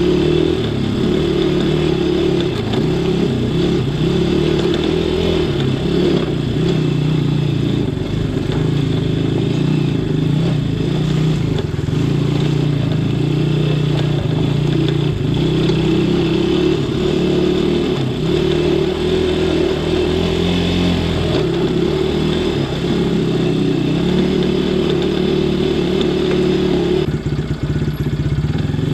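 ATV engine running at low speed as the quad crawls along a rough dirt trail, its pitch rising and falling with the throttle. Near the end the engine note eases off.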